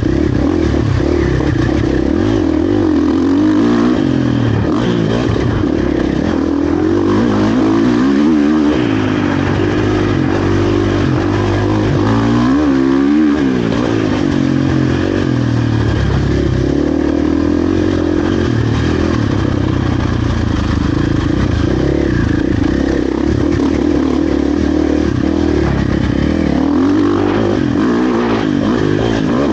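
2023 KTM 450 SX-F's single-cylinder four-stroke engine being ridden hard on a motocross track, its revs rising and falling constantly with the throttle, with a couple of brief sharp drops in revs that pick straight back up.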